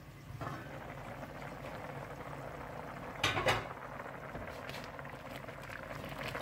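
Milk with rice and grated carrots bubbling steadily in a steel pot as gajrela cooks down. Two sharp metal clinks a little over three seconds in, as the pot's steel lid is lifted off.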